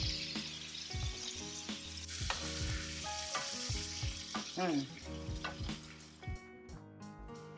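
Food frying in oil in a hot cast iron skillet: a steady sizzle that dies away near the end.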